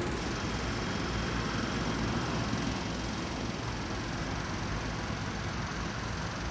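Steady city street noise: a continuous, even wash of traffic with no distinct events.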